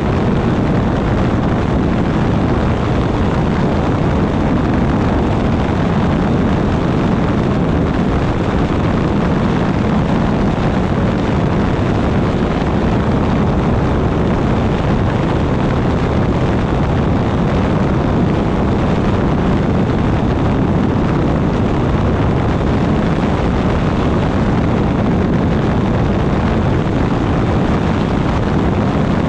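Weight-shift microlight trike in cruising flight: a steady rush of wind over the microphone mixed with the drone of its pusher engine and propeller.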